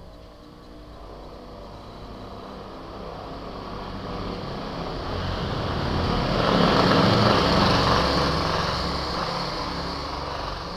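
A motor vehicle passing by: its engine and road noise grow steadily louder to a peak about seven seconds in, then fade away.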